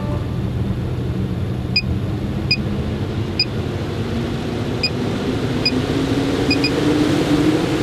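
Maxx Air Deluxe roof vent fan running with a steady hum and rush of air. Its pitch rises over the second half as it speeds up, and seven short electronic beeps from its controls are heard, two of them close together near the end.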